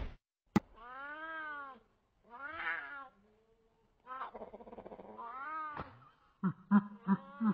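Cat meowing: three long, drawn-out meows, each rising then falling in pitch, with a short click just before the first. Near the end, after a cut, a run of short quick sounds begins.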